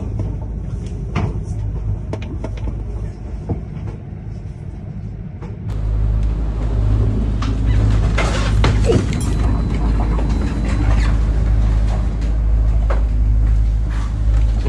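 Rough sea and wind rushing past the deck of a large yacht, with scattered sharp clicks. About six seconds in, this cuts to a louder, steady low rumble inside the yacht's cabin, with frequent knocks and rattles.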